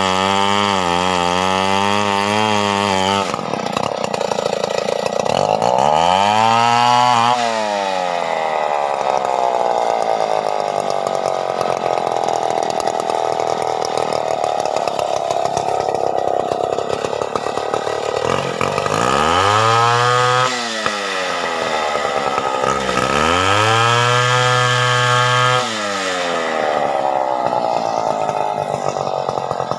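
Stihl 070 two-stroke chainsaw running, throttled up to high revs four times and dropping back to a low, slower run between.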